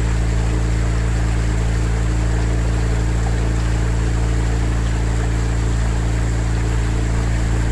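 Outboard motor of a boat pacing alongside, running steadily at an even speed.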